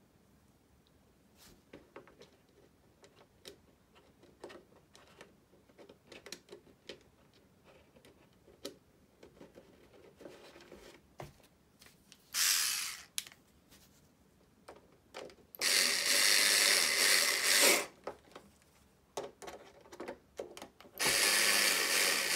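Light clicks and taps of handling the plastic body, then three bursts of a small power tool running: a short one, a longer one of about two seconds, and another starting near the end.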